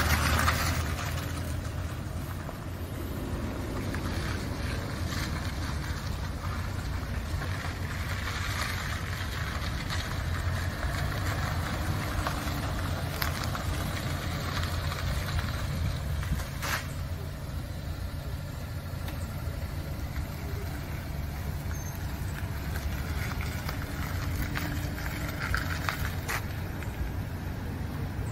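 A 1994 Suzuki Carry mini truck's 660 cc three-cylinder engine running as the truck drives around a paved lot, heard from outside with its tyres on the asphalt. It is loudest in the first second, then steady, with a couple of brief clicks later on.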